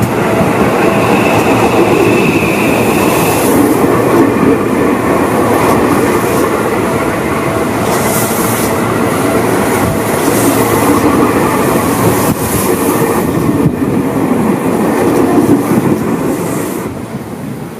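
Seibu 001 series Laview limited express passing close by: steady wheel-on-rail running noise, with a thin high tone for the first few seconds. It falls away as the last car goes by near the end.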